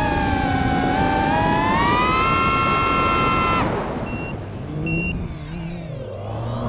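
FPV quadcopter's brushless motors and propellers whining in a stack of high tones, the pitch rising as the throttle comes up about a second in. A little past halfway the whine cuts off sharply as the throttle is chopped for a flip, leaving quieter air rush and faint flickering motor tones while the quad tumbles.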